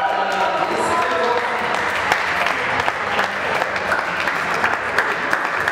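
A small crowd applauding, a steady patter of many hands clapping.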